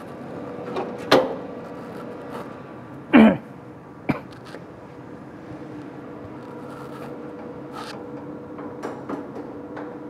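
Clicks and knocks from handling a roll of DTF transfer film on a printer's feed rollers, the loudest about three seconds in, over a steady low machine hum.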